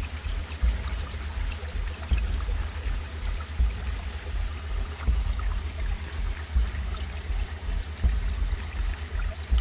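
Rushing water of a mountain stream: a steady hiss with an uneven low rumble underneath.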